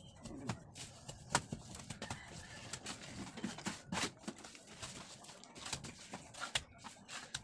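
Irregular sharp clicks and knocks of hand work on a concrete hollow-block wall during electrical wiring installation.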